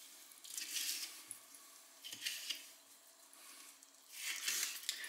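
Knife slicing through raw fish fillet onto a wooden cutting board: about three soft, faint cuts.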